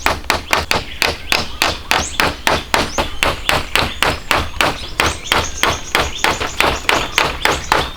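Rapid, even striking of a hand tool, about four blows a second without a break.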